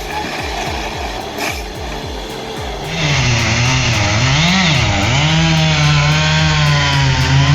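A chainsaw comes in loud about three seconds in, its engine pitch dipping and rising again several times as the saw is loaded. Background music plays before it.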